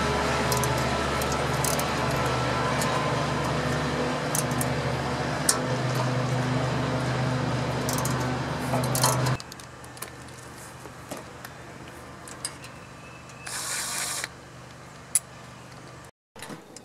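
Scattered metallic clicks and taps of hands and tools working on a small OHV engine's valve gear. Behind them a steady machine hum stops abruptly about nine seconds in. Near the end there is a brief hiss.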